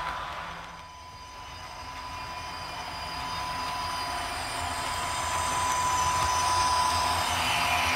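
H0-scale model train running on its track, with a steady high whine over the wheel rumble; it dips about a second in, then grows steadily louder.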